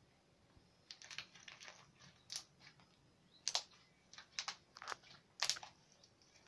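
Homemade glue-and-borax slime being squeezed and stretched by hand, making a run of short sticky clicks and pops, loudest about three and a half and five and a half seconds in.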